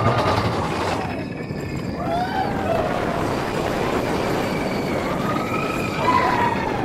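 Expedition Everest roller coaster train rumbling along the track, with riders' voices rising and falling in yells several times over the noise.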